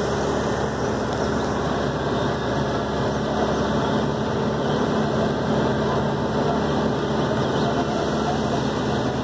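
Bus engine running steadily under way, heard from inside the cabin, with road noise.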